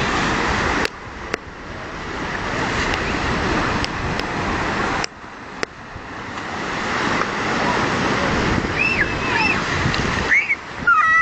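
Sea surf breaking and washing around rocks: a steady rush of water noise that cuts off abruptly twice and builds back up. Children shout near the end.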